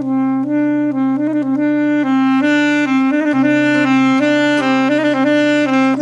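Saxophone playing a slow melody of long held notes, with a steady low tone held underneath.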